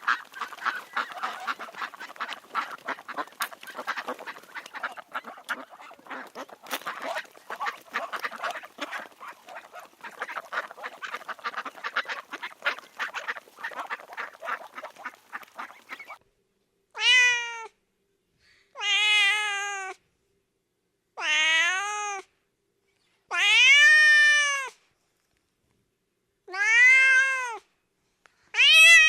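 A flock of ducks quacking in a dense, rapid chatter for about sixteen seconds. After a short pause, a domestic cat meows five times, each meow about a second long and rising then falling in pitch, with another meow starting at the end.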